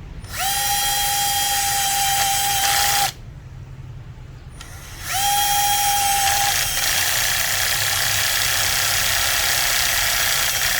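Small electric screwdriver motor whining at a steady pitch as it drives screws. It runs for about three seconds, stops, then starts again about five seconds in. Partway through the second run the whine turns rougher and noisier and carries on.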